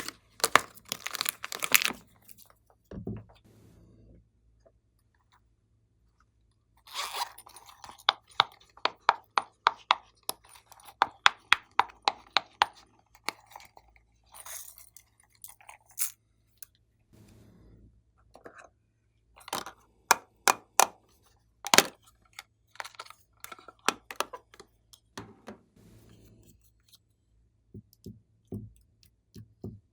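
Glossy slime being kneaded and squeezed by hand, giving sharp sticky pops and crackles in quick runs. A few seconds of quiet break it up about four seconds in.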